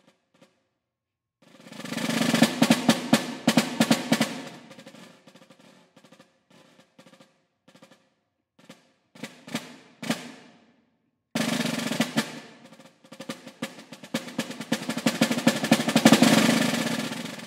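Snare drum played with medium hornwood orchestral sticks. About a second and a half in, a roll grows louder and then fades. Scattered soft strokes follow, then a second roll starts suddenly a little past halfway, builds to its loudest near the end and dies away.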